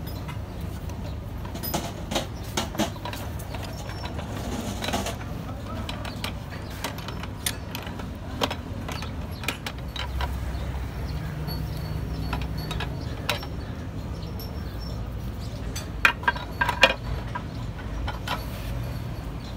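Scattered metallic clinks and knocks as a truck differential's carrier and ring gear are handled and set into the steel housing, with a few sharper knocks near the end, over a steady low hum.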